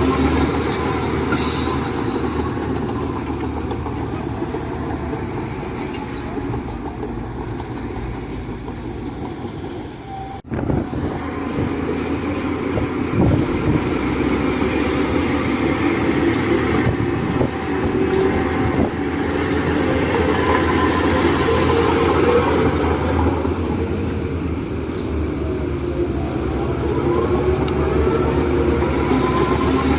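Heavy diesel machinery running steadily under load, with a short hiss of air about a second and a half in and a brief break in the sound about ten seconds in.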